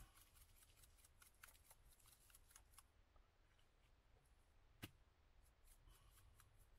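Faint rattle of a spice shaker being shaken, a quick run of small ticks over the first three seconds, then one sharp click a little before five seconds in, over a low hum.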